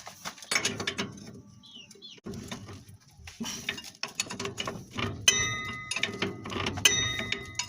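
Metal hand tools clicking and clinking on a stiff bolt during spring removal, in irregular taps and ratcheting clicks. Two sharper metal strikes ring on briefly, about five and seven seconds in.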